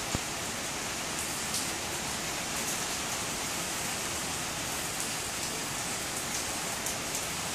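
Steady rain falling, an even hiss with no let-up. A single light click sounds right at the start.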